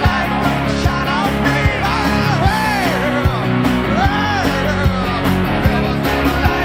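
Rock music with a sung vocal, a steady drum beat and guitar.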